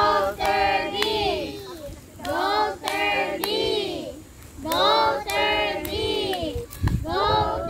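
A group of children singing together in short repeated phrases, about four of them with brief pauses in between.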